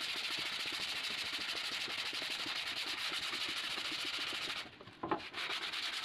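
Steady sanding on a 3/4-inch plywood shelf piece, which stops a little before five seconds in, followed by a few light rubs and knocks.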